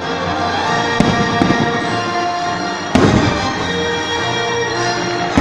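Fireworks bursting over orchestral show music played over loudspeakers. A few sharp bangs come, the loudest about three seconds in, followed by a rumbling, crackling tail.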